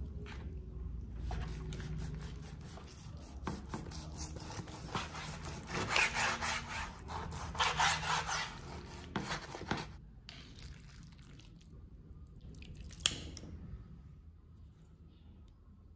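Kitchen knife cutting raw chicken thigh on a bamboo cutting board: repeated short strokes and scrapes of the blade through the meat and onto the wood, loudest about six to eight seconds in. Later comes one sharp click.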